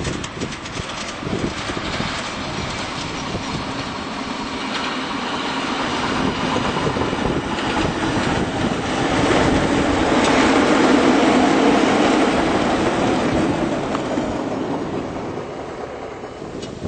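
Miniature railway train running past, its wheels rumbling and clicking over the track, growing louder to a peak just past halfway and then fading away.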